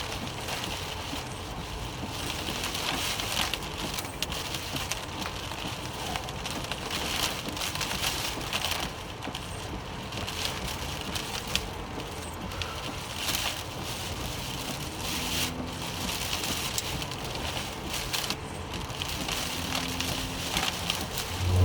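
Rain striking a vehicle during a severe thunderstorm: a steady rushing hiss with many small irregular ticks of drops hitting.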